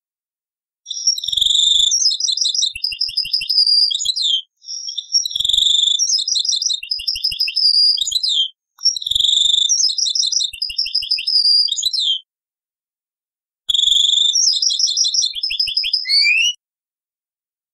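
European goldfinch singing: four phrases of rapid twittering notes, trills and chirps, each a few seconds long with short pauses between them. The song is played back from an old cassette recording.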